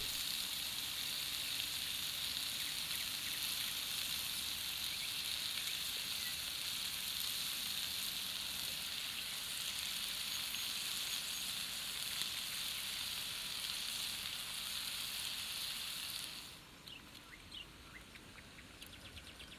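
Meat and sliced onion, carrot and tomato sizzling in sunflower oil in a frying pan over a campfire, a steady frying hiss. About sixteen seconds in the sizzle cuts off, leaving a quieter background with a few light clicks.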